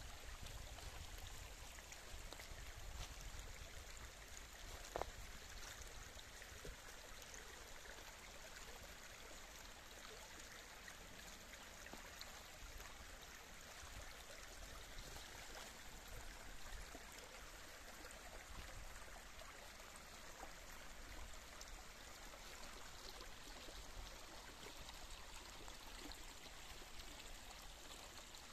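Shallow woodland stream running over a leaf-strewn bed with a soft, steady babble of water. A single short click about five seconds in.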